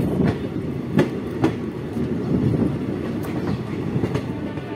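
Passenger train running along the track, heard from an open coach door: a steady low rumble with a few sharp wheel clacks over rail joints at uneven spacing.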